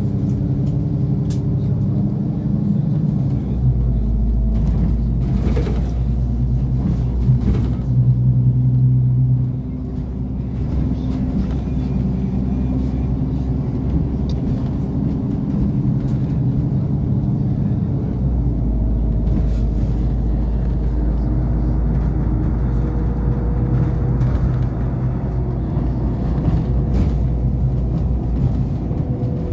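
NefAZ 5299 city bus in motion, heard from inside the passenger cabin: a steady engine drone with road rumble, the engine note changing pitch several times as the bus speeds up and slows in traffic, loudest briefly about eight to nine seconds in.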